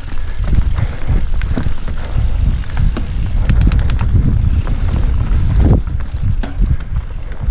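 Mountain bike riding fast down a dirt forest trail, heard from a helmet camera: wind buffeting on the microphone and a low rumble of tyres on dirt, with sharp clicks and rattles from the bike over bumps, a cluster of them about three and a half seconds in.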